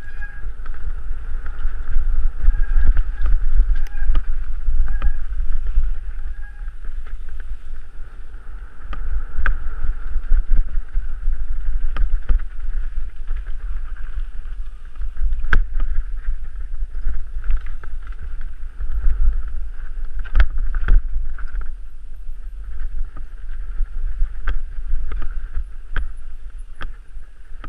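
Mountain bike riding down a rough gravel trail: wind rumbling on the action camera's microphone, a steady high buzz, and frequent sharp knocks and rattles as the bike runs over stones and bumps.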